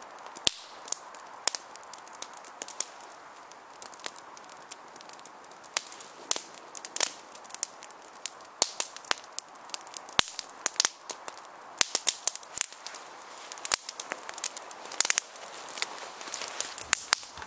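Small wood fire of split kindling sticks crackling, with sharp irregular pops, at times several a second, over a steady hiss.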